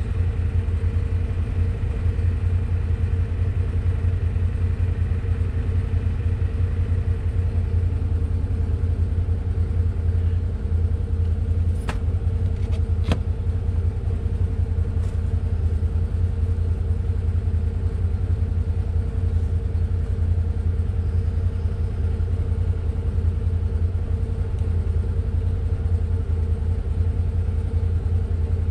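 A vehicle engine idling steadily with a low rumble, and two sharp clicks near the middle.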